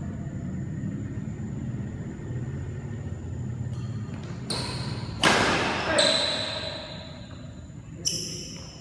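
Doubles badminton rally: racket strikes on the shuttlecock and short high squeaks of shoes on the court floor, echoing in a large hall. The loudest hit comes about five seconds in, with a second sharp hit near the end.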